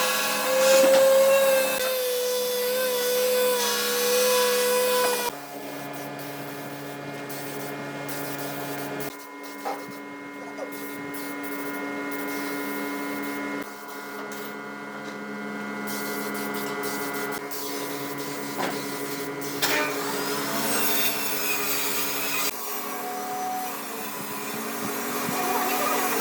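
Electric power tool motor running steadily on wood, a hum with a high hiss; its pitch and character change abruptly several times.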